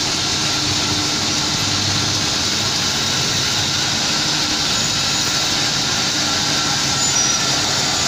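Log band sawmill running: a steady, even machine noise from the band saw and its works.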